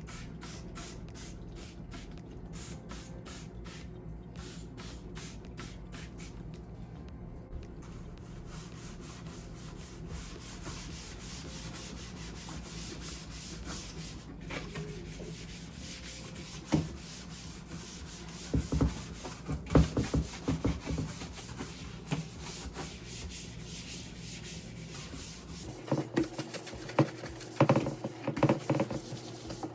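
Rhythmic scrubbing strokes, a few per second, as fridge parts are cleaned by hand, turning into rougher rubbing with several knocks in the second half. A steady low hum runs underneath.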